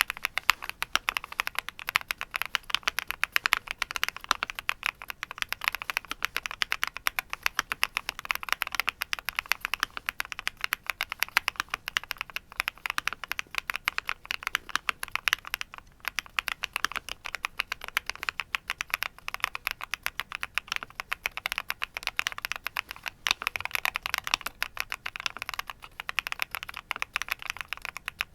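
Continuous fast typing on a Qwertykeys QK75 custom mechanical keyboard: a dense run of crisp key clicks, with a brief pause about halfway through.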